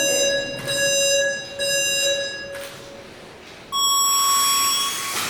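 Electronic race-start signal from a race timing system: three beeps at one pitch, then, after a short pause, a single longer beep about an octave higher that signals the start.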